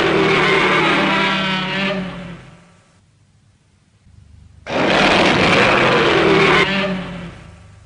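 Godzilla's roar from the 1984 film, a harsh, drawn-out cry with wavering pitch, heard twice: the first trails off in the first few seconds, and the second starts a couple of seconds later and cuts down near the end.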